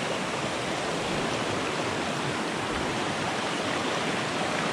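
Small rocky forest stream running fast over stones and riffles: a steady, even rush of water.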